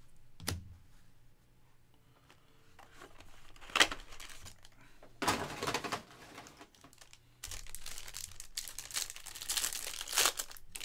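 Foil trading-card pack crinkling as it is handled and then torn open, in several crackly bursts with a longer stretch of crinkling near the end. A single sharp click about half a second in.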